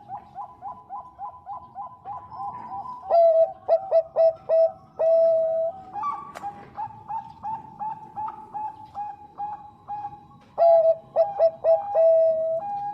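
Zebra dove (perkutut bangkok) singing: a steady run of quick, soft coo notes, several a second. Twice, about three seconds in and again near the end, it breaks into louder phrases of rapid falling coos that end in a longer held lower note.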